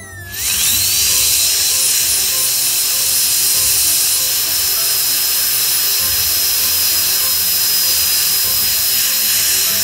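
High-speed air-turbine dental handpiece with a bur, spinning back up from a low whine within the first second and then running at a steady high whine over the hiss of its air and water spray. It is cutting a veneer preparation in a plastic typodont tooth.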